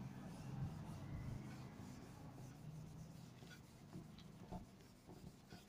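Quiet room tone with a low steady hum and a few faint soft clicks and rustles, mostly in the second half.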